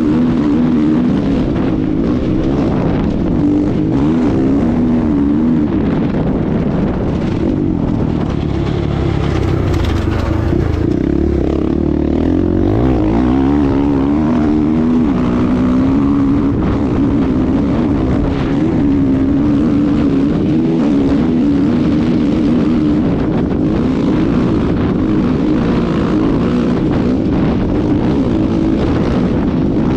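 KTM 500 EXC single-cylinder four-stroke dirt bike engine running hard at racing speed, its pitch rising and falling with gear changes and throttle. The revs drop around ten seconds in and climb again, with steady wind and dirt noise under the engine.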